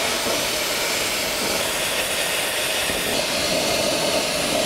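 Handheld plasma cutter cutting steel plate as the torch traces a circular template: a steady, loud hiss of the arc and air jet.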